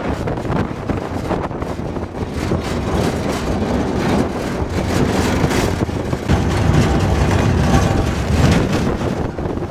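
Pickup truck driving over a bumpy dirt track, heard from the open truck bed: a steady rumble of engine and tyres with frequent knocks and rattles, and wind on the microphone. The rumble grows louder about halfway through.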